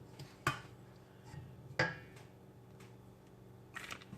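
A few light knocks and clicks of kitchenware being handled on the counter, the two sharpest about half a second and just under two seconds in, with small taps near the end.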